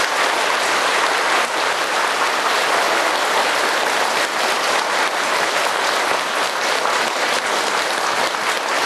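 Large audience applauding steadily, many hands clapping at once in a big round of welcome applause.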